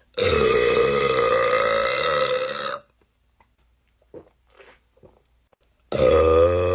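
A person's long, loud burp lasting about two and a half seconds, then a short quiet, and a second long burp starting near the end.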